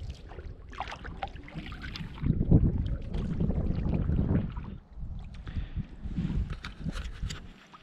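A canoe under way: paddle strokes in the water and a few light knocks against the hull, loudest in the middle stretch.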